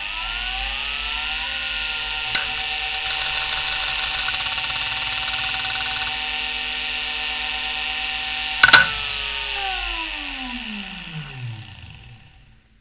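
Maxtor 8051A 3.5-inch IDE hard drive, 3484 rpm, finishing its spin-up with a rising whine, then running at speed with a click about two seconds in and a few seconds of buzzing as it initialises. A sharp clack comes near nine seconds, and then a falling whine as the platters spin down. The whine comes from spindle bearings that the owner calls not very good.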